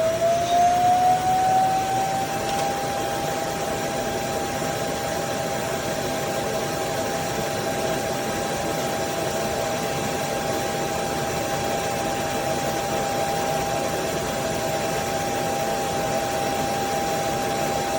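Tapo RV30 Max Plus robot vacuum's suction fan motor running with a whine over rushing air. The whine rises in pitch as it spins up during the first couple of seconds, then holds a steady pitch.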